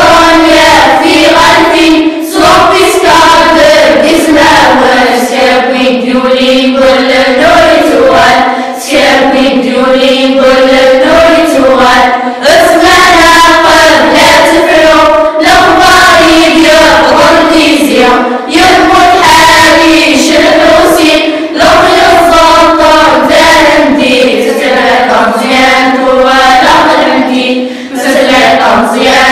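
A children's choir singing together, in sung phrases separated by brief pauses for breath every few seconds.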